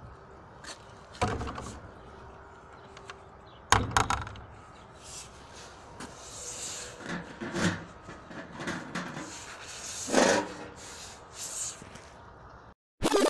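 A letterbox being opened by hand: two sharp knocks, then scraping and rustling as an envelope is pulled out, with a louder scrape near the end.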